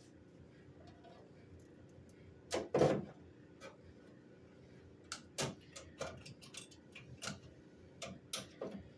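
Irregular clicks and knocks of hand work on sheet-metal floor pan pieces: a louder pair of knocks about two and a half seconds in, then a run of small scattered clicks, over a faint steady hum.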